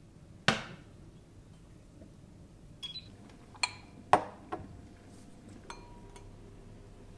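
Clinks and knocks of kitchenware being handled and set down on a countertop, about eight in all, the loudest two about half a second and four seconds in, each with a short ring. Near the end, lighter clinks of a metal mesh sieve against a glass as matcha is sifted, one leaving a brief ringing tone.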